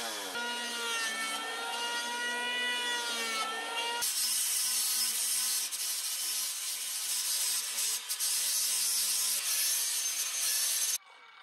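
A chainsaw runs on a log for about four seconds, its pitch wavering. Then an angle grinder grinds along a peeled log: a steady whine under a strong hiss that cuts off suddenly near the end.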